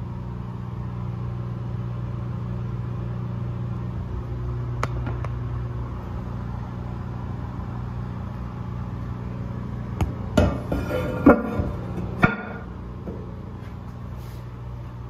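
A steady low electrical hum runs throughout. About ten seconds in come a couple of seconds of sharp clicks and knocks of hard objects, ending in one last clack.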